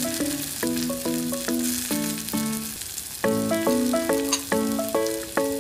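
Background instrumental melody of short stepped notes, louder from about three seconds in, over chopped onions and green chillies sizzling and crackling in hot oil in an aluminium pot.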